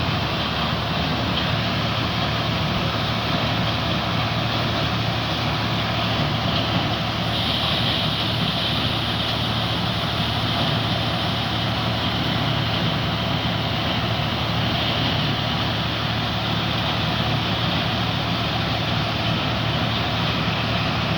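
Tractor-driven maize sheller running steadily: a tractor engine hum under a continuous dense mechanical noise from the sheller, a little brighter from about seven seconds in.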